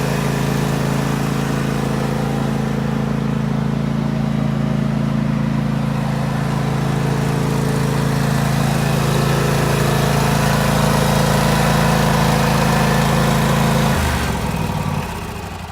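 John Deere GT235 lawn tractor's engine running steadily, then shut off about 14 seconds in, sputtering down and fading out.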